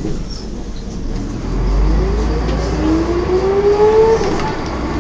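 Volvo B10M bus pulling away with its ZF automatic gearbox whining: a high whine rises steadily in pitch over the engine's rumble as the bus accelerates, then cuts off about four seconds in. Heard from inside the bus.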